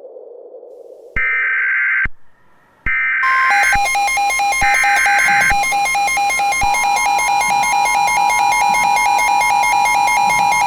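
Emergency Alert System (NOAA Weather Radio style) alert tones. About a second in, three short bursts of warbling digital header data sound, each about a second long. From about three seconds in, a steady piercing attention tone near 1 kHz plays together with a rapidly pulsing electronic beep. Together they signal the start of a new warning broadcast.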